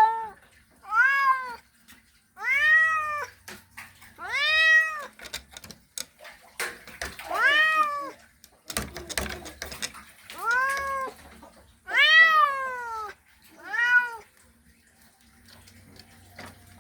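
A male domestic cat's mating call: a series of loud meows, about eight, each one rising and then falling in pitch, with a longer pause in the middle.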